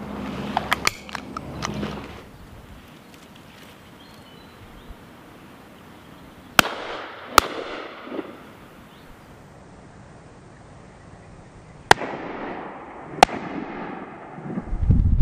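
Shotgun fired four times in two pairs, each shot a sharp crack followed by a long fading echo. The first pair comes under a second apart about six and a half seconds in, and the second pair about a second and a half apart near the end. A few small quick clicks sound about a second in.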